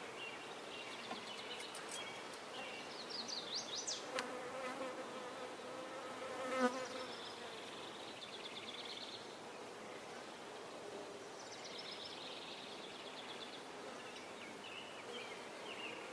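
Honeybees buzzing steadily around an opened top bar hive, disturbed by comb being cut and worked loose. The buzz swells briefly louder about six and a half seconds in.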